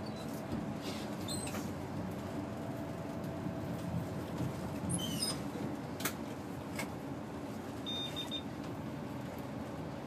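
Airport ramp bus driving, heard from inside the cabin: steady engine and road noise, with a few sharp clicks or rattles around the middle and a brief high beep near the end.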